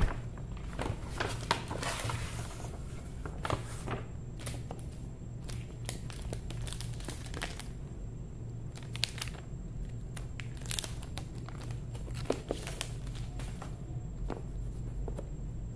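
Clear plastic shrink-wrap crinkling and tearing as it is pulled off a phone box, in irregular bursts with a few sharp clicks, over a steady low hum.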